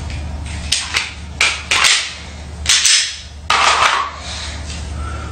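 Pretend gunfire in a quick-draw game: about six short, sharp hissing bursts over three seconds, with the later ones lasting longer.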